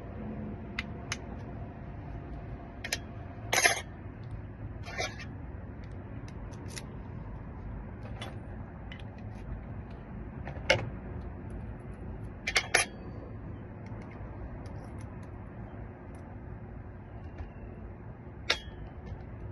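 Small metal clicks and clinks of a lock cylinder being rekeyed by hand, with pins, tools and keys handled. The clinks are scattered and irregular, a few sharper ones standing out over a steady low background hum.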